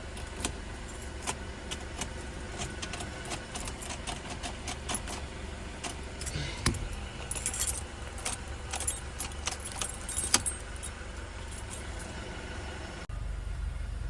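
Car keys jangling, with irregular small metallic clicks and taps over a steady low hum. About thirteen seconds in, the sound cuts abruptly to a louder, steady low hum.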